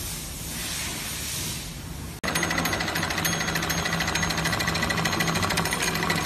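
A steady hiss for about two seconds, then, after a sudden cut, a heavy-duty programmable industrial sewing machine stitching webbing at speed: a loud, rapid, even needle clatter.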